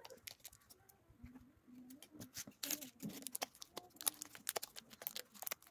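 Pleated paper candy cups crinkling and crackling as the sesame-coated sweets in them are picked up and handled, in irregular small clicks and rustles.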